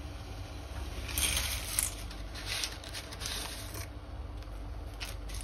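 Plastic spaghetti packet crinkling and rustling in several short spells as dry spaghetti is tipped out into a pot of boiling water, starting about a second in and stopping near four seconds, over a low steady hum.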